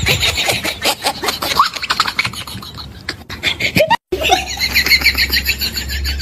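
Rapid, pulsing human laughter with quick rises in pitch. About four seconds in the sound cuts out for an instant, and the laughter resumes over a steady low hum.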